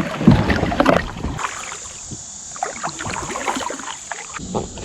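Kayak paddles splashing and knocking in shallow creek water, loudest in the first second and a half, then quieter scattered splashes and clicks.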